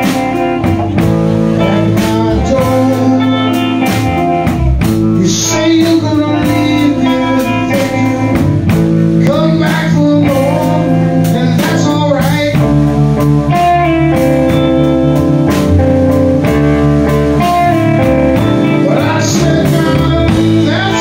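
Live blues-rock band playing: two electric guitars, electric bass and drum kit, with a man singing at the microphone in places.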